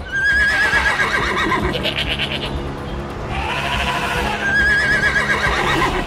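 Background music with animal sound effects: a horse whinnying in a quavering call near the start and again about five seconds in, among other animal calls.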